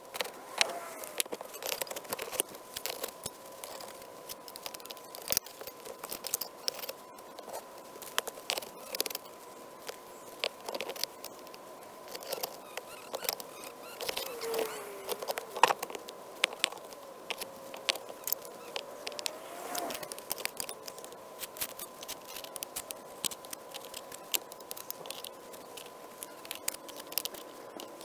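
Bricks, terracotta roof tiles and stone slabs clinking and knocking against one another as they are set in place by hand, many irregular sharp knocks, over a faint steady hum.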